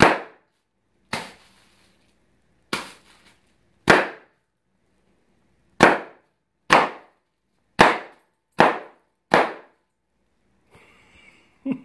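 Plastic packing bubbles popping one at a time as a child stamps on them: about nine sharp, loud pops, spaced a second or two apart at first and coming closer together, about one a second, later on.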